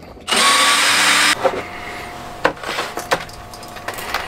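Cordless drill/driver running for about a second while backing out a porthole trim screw, followed by a few sharp clicks and knocks as tools are handled.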